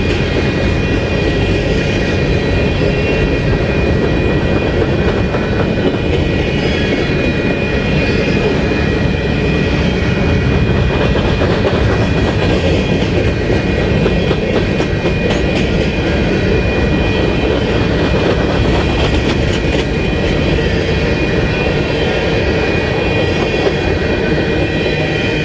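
Empty covered hopper cars of a freight train rolling past: a steady rumble of steel wheels on rail, clickety-clack over the rail joints, and a thin high ringing tone from the wheels.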